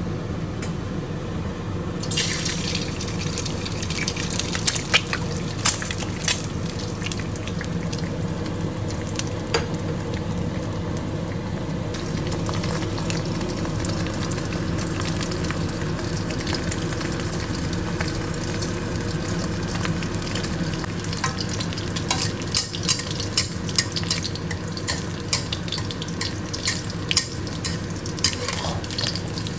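Eggs frying in hot oil in a pan: a steady sizzle that starts about two seconds in, with scattered pops and crackles that grow thicker near the end. A steady low hum runs underneath.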